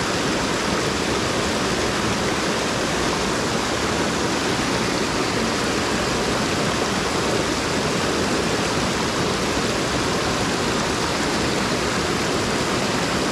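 A small waterfall on a tiny mountain creek, water pouring over a low log-and-rock ledge just below, making a steady, unbroken rush.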